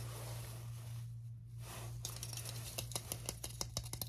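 Close-up ASMR handling sounds: fingers rubbing, then rapidly tapping and scratching a small plastic figurine held against the microphone. A soft rustle comes first, then a quick, irregular run of sharp clicks starting about halfway through, over a steady low hum.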